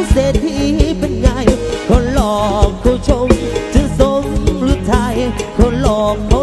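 Thai live band music: a wavering sung melody over a regular kick-drum beat and deep bass.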